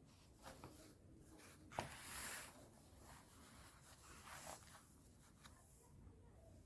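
Near silence, broken by faint handling noises: a sharp click about two seconds in and a few soft rustling scrapes, like pen or paper being handled.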